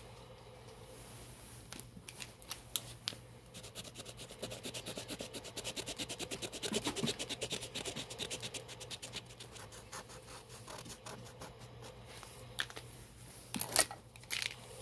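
Marker scribbling rapidly back and forth on canvas while colouring in a patch: a long, fast, even run of scratchy strokes through the middle, with a few separate strokes before and near the end.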